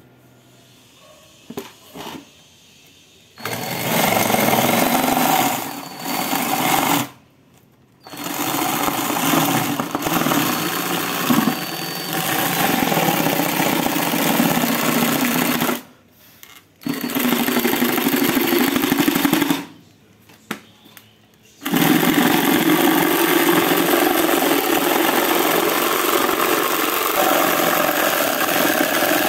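Ryobi 18V cordless drill driving a reciprocating jigsaw adapter, its blade sawing rapidly through a wooden plank. The cutting starts about three seconds in and runs in long stretches, stopping briefly three times.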